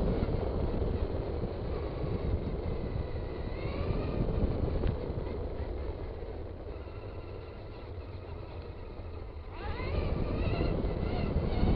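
Traxxas Stampede 2WD RC car driving, heard close up: a steady rumble of the car running over the ground, with the electric motor's whine rising in pitch as it accelerates, once a few seconds in and again near the end.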